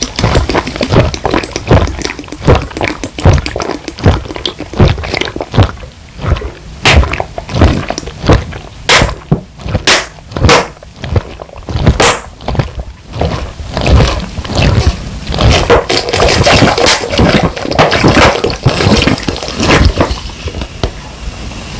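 Rapid rhythmic gulping of fizzy lemon soda chugged straight from a 1.5-litre bottle, about two swallows a second, with the liquid sloshing in the bottle.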